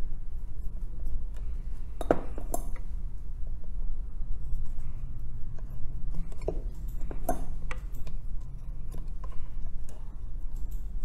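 Scattered light clinks and clicks of metal tweezers and small tools handled during board cleaning, a few each second at most, over a steady low hum.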